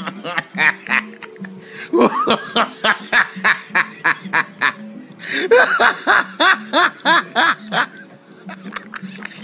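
A person laughing hard in two runs of quick, repeated bursts, each about two seconds long, over background music.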